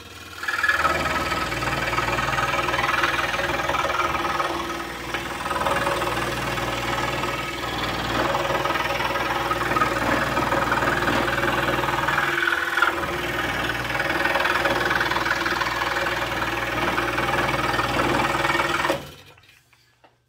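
Pegas scroll saw running, its blade cutting through 3/4-inch wood to saw the pieces of a wooden puzzle apart. A steady low motor hum under the cutting noise, which stops suddenly shortly before the end.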